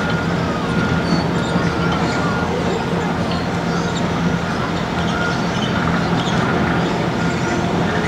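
Steady rumble and hum of a moving vehicle, with a thin high tone that fades out a few seconds in.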